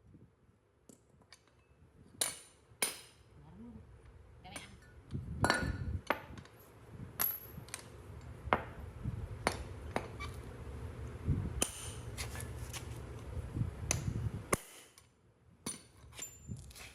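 Repeated sharp metallic clinks and knocks of hand tools against steel parts, some ringing briefly. A steady low hum runs under them through the middle and cuts off suddenly near the end.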